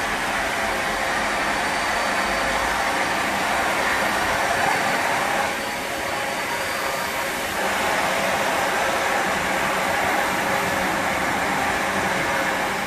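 GWR Castle-class 4-6-0 steam locomotive Earl of Mount Edgcumbe approaching slowly with a steady hiss and no exhaust beats, easing off briefly about halfway through.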